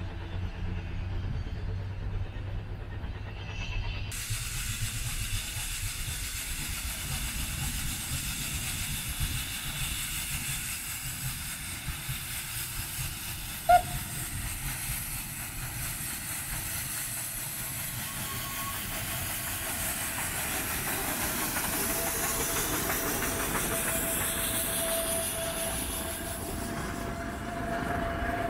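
Rack-railway steam locomotive at work: a low rumble for the first few seconds, then a steady bright hiss of steam with the train running. A single sharp clank comes about halfway through, and a held tone sounds through the last several seconds.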